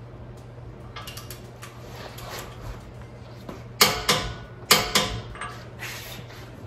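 A click-type torque wrench on the truck's front axle nut, with light ratcheting ticks at first and then several sharp metallic clicks about four seconds in, as the nut reaches its 185 ft-lb torque spec.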